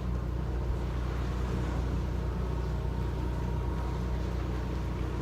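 Boat engine running steadily: an even, low drone that holds constant throughout.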